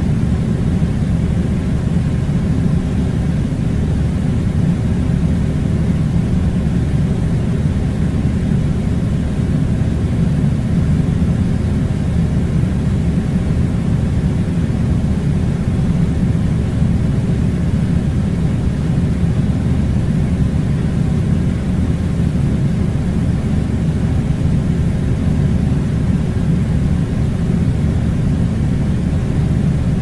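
Air conditioning running: a steady, loud low rumble with a faint hiss above it.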